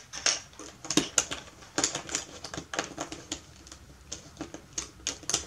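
Irregular light clicks and clacks of plastic speed-cube pieces being handled and fitted together.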